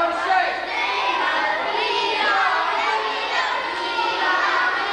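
A group of young children's voices singing and calling out together, several at once.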